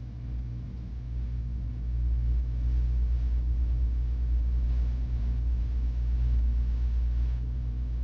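Low, steady mechanical rumble, like a running engine or machine, growing louder about two seconds in and easing near the end.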